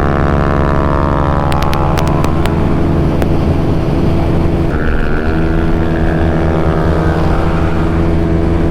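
Yamaha Aerox single-cylinder scooter engine running hard at about 120 km/h, a steady drone with wind rush; its note shifts about halfway through, and a few sharp clicks come early.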